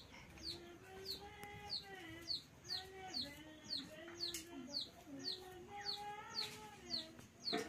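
Chickens clucking with drawn-out low, wavering calls, over a high, falling chirp repeated about twice a second.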